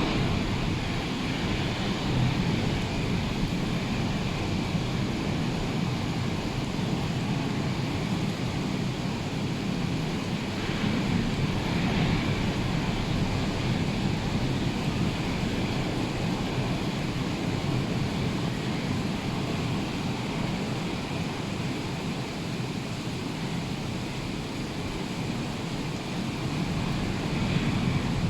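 Rough sea surf washing steadily, with wind, swelling and easing slowly without a break.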